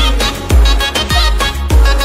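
Background music with a steady, heavy bass beat, about three beats every two seconds.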